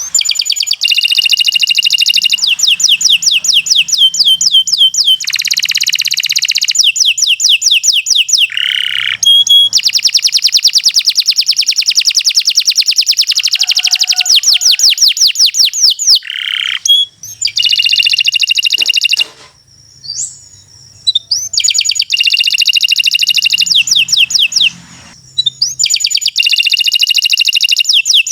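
Domestic canary singing long, rapid trilling song phrases, each a fast run of repeated notes, with a few brief pauses past the middle.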